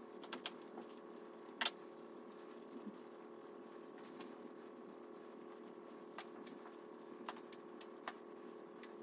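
Hands kneading a ball of dough on a floured tabletop, giving a few scattered soft taps and knocks, the sharpest about a second and a half in. A faint steady hum runs underneath.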